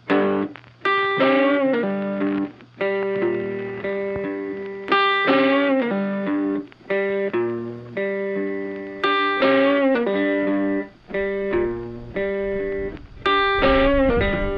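Background music: a guitar picking a short melody of plucked notes that ring and fade, the phrase repeating about every four seconds.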